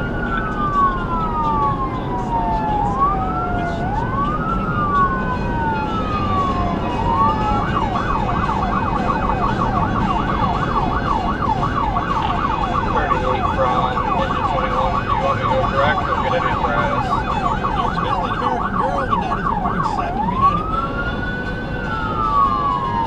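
SoundOff Signal nERGY 400 200-watt electronic siren sounding through a 100J composite speaker on a vehicle responding to an emergency. It runs a slow rising and falling wail, switches about seven seconds in to a fast yelp of three to four sweeps a second, and goes back to the wail near the end, over steady road noise.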